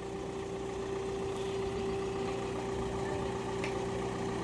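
An engine idling steadily, with a low rumble and an even hum.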